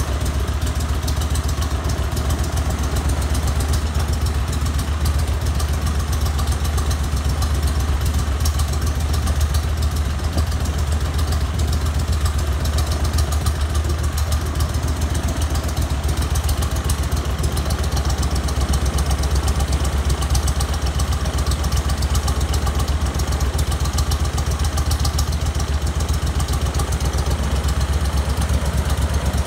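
Briggs & Stratton twin-cylinder engine with a double carburettor setup running steadily at an even speed, turning the propeller on a short test run.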